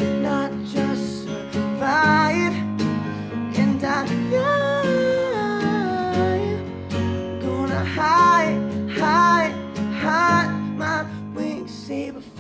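Acoustic guitar strumming and a Casio Privia digital piano playing chords together, with a man singing long, wavering held notes over them.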